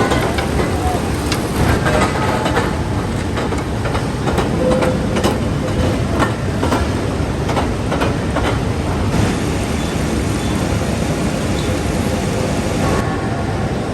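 Heavy steel-works machinery running with a steady rumble and frequent short metallic clanks and knocks.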